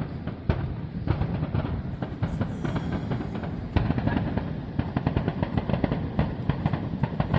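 Fireworks going off in a rapid, continuous barrage of overlapping bangs, the dense firing typical of a finale.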